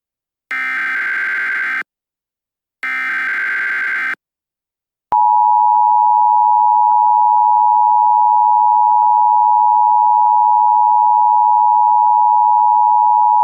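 Emergency Alert System broadcast signal. It starts with two short bursts of harsh, buzzing digital data tones (the SAME header) about a second apart. About five seconds in, the loud, steady two-tone EAS attention signal begins and holds.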